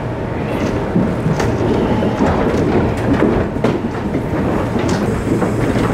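Loaded aluminium livestock trailer carrying sheep: a steady low rumble with irregular metallic knocks and clatter.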